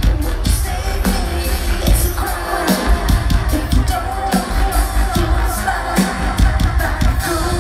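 Live band playing amplified synth-pop with heavy bass and a steady drum beat, heard through a phone's microphone in the crowd.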